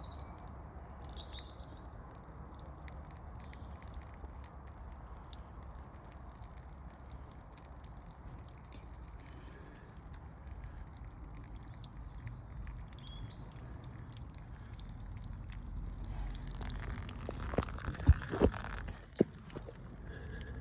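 Water trapped inside a uPVC door running and dripping out steadily where a screw was undone, the door's hollow frame full of water. A few knocks near the end.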